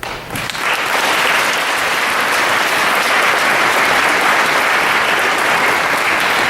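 A large audience applauding, starting at once and holding steady and loud, at the end of a spoken-word poem.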